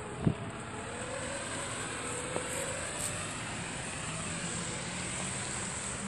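Steady hum of a vehicle engine running outdoors, its pitch drifting slowly up and down, with a single thump just after the start.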